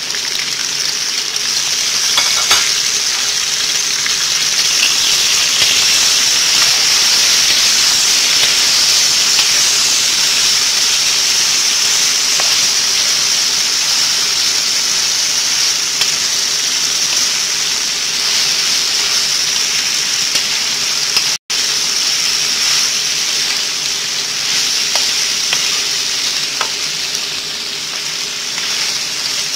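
Chicken and vegetables sizzling steadily in a hot pan while freshly added cabbage and broccoli are stirred in, with a few faint clicks of the wooden spatula. The sound cuts out for an instant about two-thirds of the way through.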